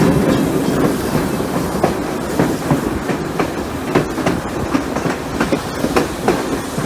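Steam-hauled heritage train heard on board while running: a steady running noise with sharp, irregular wheel clicks over the rail joints, about two or three a second.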